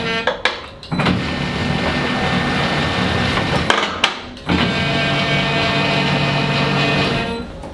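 Electric reversible dough sheeter running steadily, its belts carrying laminated croissant dough through the rollers to thin it. The motor stops with a clunk and starts again twice, at the reversals, and winds down near the end.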